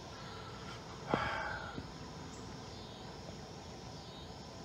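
Faint outdoor background with a thin, high-pitched chirring throughout, and one short, louder sound about a second in.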